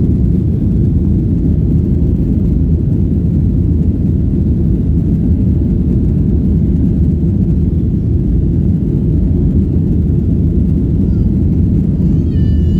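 Steady engine and airflow noise of a Boeing 737-800's CFM56 turbofans, heard inside the passenger cabin, low and unchanging. Near the end a brief high, wavering cry rises over it.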